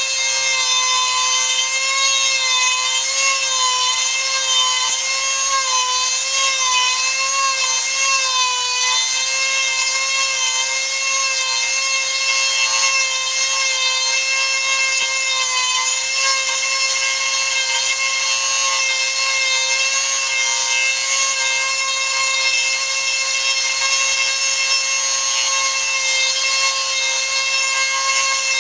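Dremel rotary tool running at high speed with a small bit carving into a wooden ear piece: a steady high whine from the motor, with the pitch wavering slightly in the first several seconds and the rub of the bit on the wood.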